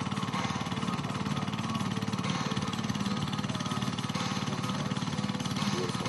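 A small engine running steadily, a low, fast, even throb that does not change.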